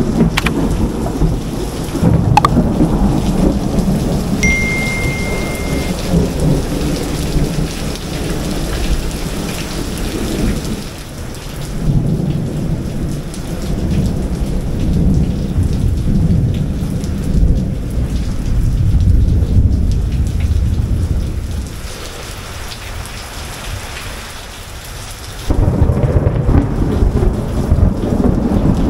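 Heavy rain falling on wet pavement, with thunder rumbling low and unevenly through it. The sound eases for a few seconds near the end, then comes back loud all at once.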